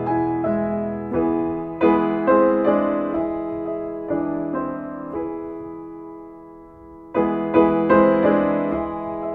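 Solo piano music: chords struck one after another and left to ring. A chord fades through the middle, and new chords come in about seven seconds in.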